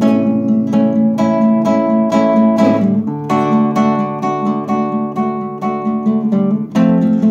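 Nylon-string classical guitar played solo, chords struck in a steady rhythm of several strokes a second, changing chord about three seconds in and again near the end.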